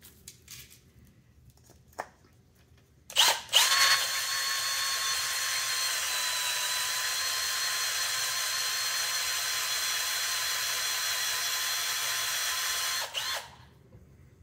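Cordless drill spinning a step bit through a PVC end cap, enlarging the hole toward 1 1/8 inch. It starts about three seconds in, runs with a steady whine for about ten seconds as the bit cuts the plastic, and stops shortly before the end. A few faint clicks come before it.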